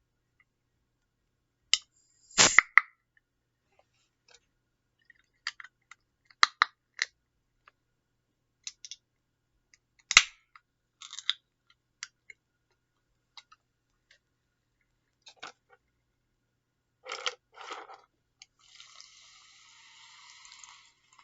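Mouth sounds of someone drinking Sprite: scattered sips, swallows and lip smacks with small clicks, and a soft steady hiss near the end.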